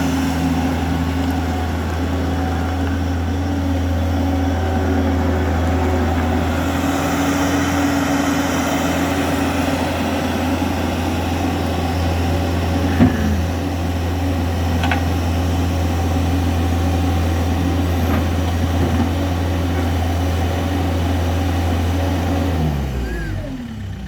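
New Holland LS170 skid steer's diesel engine running steadily at idle, with a single sharp click about halfway through. Near the end the engine's pitch drops and it winds down as it is shut off.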